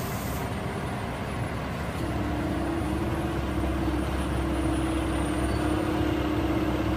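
Mack concrete mixer truck's diesel engine running as the truck moves slowly: a steady low rumble, with a steady hum joining about two seconds in.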